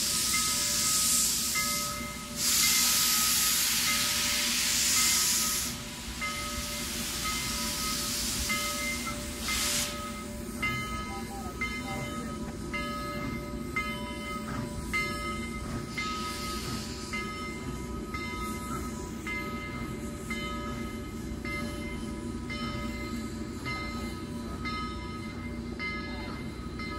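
Steam locomotive letting off a loud hiss of steam that stops abruptly about ten seconds in, while a bell rings over and over and keeps ringing after the hiss ends.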